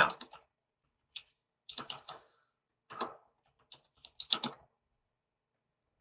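Computer keyboard typing: several short runs of key clicks.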